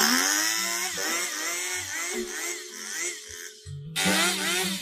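Husqvarna two-stroke chainsaw revving up and cutting into a wooden slab, its engine pitch dipping and recovering about twice a second under load. It eases off about three and a half seconds in, then revs up again.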